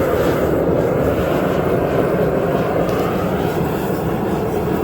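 A forge running hot with a steady, loud rushing noise.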